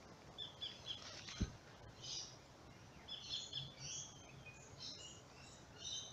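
Small birds calling in short, repeated high chirps, busiest in the second half, over faint steady background noise. A single low thump about a second and a half in.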